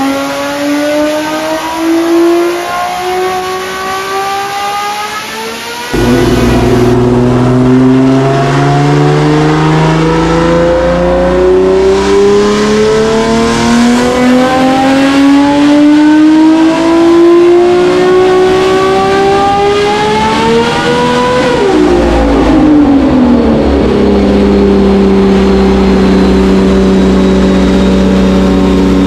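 Homemade 6-litre, roughly 1000 hp V12 with twelve open exhaust pipes, run hard on a dyno. It is loud throughout. A first rev rises, then after an abrupt cut about six seconds in comes a long full-throttle pull whose pitch climbs steadily for some fifteen seconds, drops quickly as the throttle closes, and settles into steady running.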